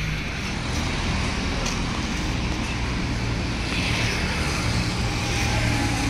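Steady road traffic noise, with the low hum of engines running.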